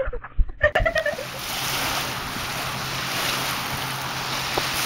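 Voices and a few knocks in the first second, then a steady, even rushing hiss with a faint low hum underneath.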